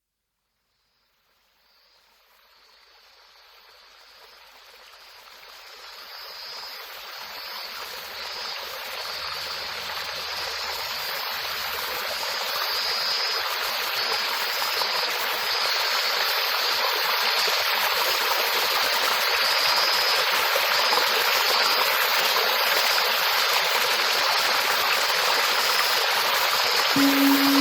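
Running water of a stream, a steady rushing that fades in from silence and builds over the first dozen seconds. A few pitched music notes enter just before the end.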